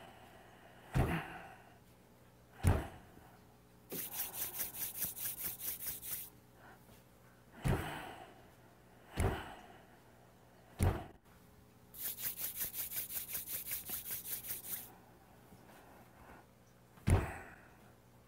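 Bare heels dropping onto a floor mat in sets of three soft thuds as part of a qigong kidney exercise. Between the sets come two bursts of palms rubbed briskly together, a fast rasping at about seven strokes a second.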